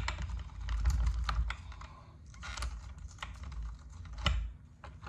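Irregular light clicks and rattles of a chainsaw chain being worked through by hand, its links knocking on the bar and the saw body, with one sharper click about four seconds in. The chain's teeth are sticking down in the bar's track.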